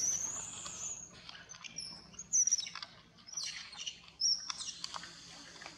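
Several high-pitched chirping calls: a long wavering one at the start, then short chirps and quick glides about two and a half and four seconds in. Light crackles of dry leaves underfoot run beneath them.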